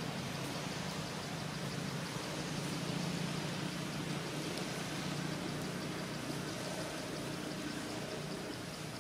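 Steady outdoor background noise with a low hum, and a faint high ticking repeating a few times a second.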